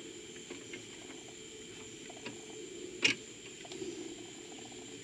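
Steady low hum of a small benchtop milling machine's motor running, the end mill turning but not cutting. Light ticks, and one sharp click about three seconds in.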